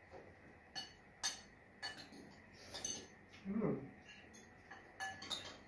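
Cutlery clinking against plates and bowls during a meal: spoons, forks and chopsticks tapping on dishes in scattered separate clicks. A little past the middle comes a brief low voice sound, the loudest moment.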